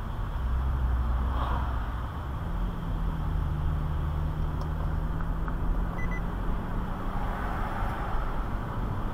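Car driving on a city street, heard from inside the cabin: a steady low engine and road rumble with tyre hiss, and a low hum that moves to a higher note about two and a half seconds in.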